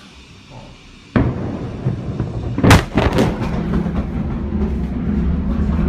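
Blast of a huge explosion reaching a phone's microphone about a second in: a sudden deep boom that turns into a heavy rumble. A sharp crack follows a couple of seconds later with a few more cracks after it, and the low rumble goes on.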